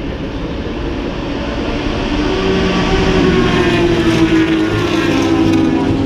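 Race car engines running on the circuit, several cars passing with their engine pitch rising and falling; the sound grows louder about two seconds in.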